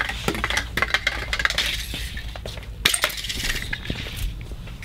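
Small plastic spool of copper wire rolling and spinning on a concrete floor: a run of quick clicks and rattles, with one sharper knock about three seconds in.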